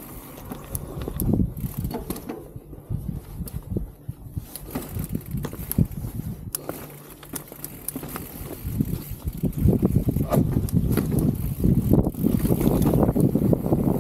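Specialized Status 160 mountain bike riding a bike-park trail: tyres on dirt and gravel with a steady run of small knocks and rattles from the bike. It gets louder from about nine seconds in.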